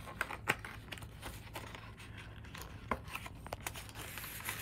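Plastic packaging of an origami paper pack crinkling and rustling as hands open it, in irregular small crackles and clicks.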